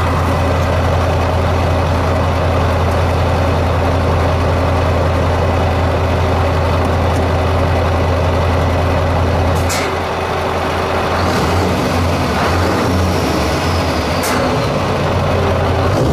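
Scania V8 diesel truck engine running with a steady, even low note; about ten seconds in the note breaks up and becomes uneven, with a couple of short sharp sounds over it.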